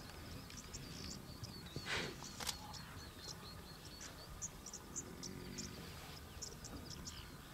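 Quiet African bush ambience: scattered short, high-pitched insect chirps over a faint low rumble, with two brief louder sounds about two seconds in.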